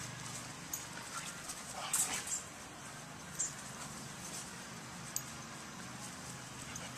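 Soft coated wheaten terriers playing and nosing in grass: a few short snuffles and rustles over a faint low hum, the loudest about two seconds in.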